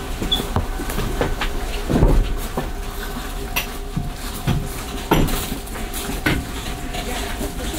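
Scattered knocks and clatter of passengers getting up and moving about inside a stopped passenger car, over a steady hum.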